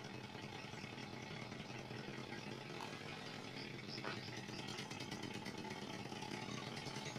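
Engine of a boxy SUV running steadily at low speed as it is maneuvered slowly through a practice course, an even engine hum.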